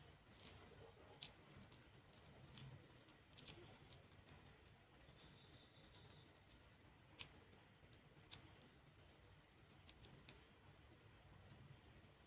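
Faint, irregular sticky clicks of a hand mixing sliced onions and green chillies into a gram-flour batter in a glass bowl, with a few sharper clicks scattered through.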